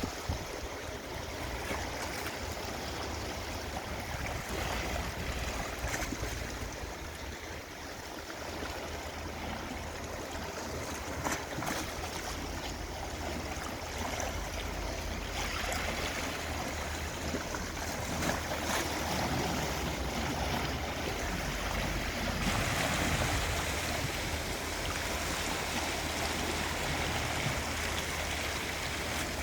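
Gentle sea waves washing and lapping against the shore, a steady rush of water that grows a little louder in the last third.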